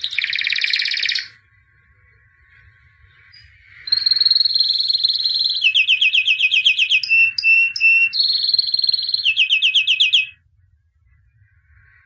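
White canary singing: a short dense burst of song at the start, then, after a pause of about two and a half seconds, a six-second phrase of held rolling notes and fast, even trills with a few separate repeated notes, which stops abruptly.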